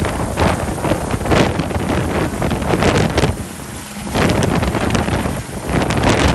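Helicopter climbing away overhead just after lift-off, its rotor downwash buffeting the microphone in loud, gusty swells that ease briefly a little after halfway.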